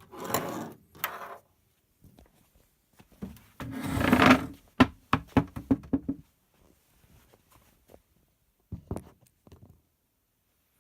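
Plastic rear cabinet of a CRT television being pried and pulled off: a brief scrape at the start, a louder scraping rush about four seconds in, then a quick run of clicks and knocks, with a couple more knocks near the end.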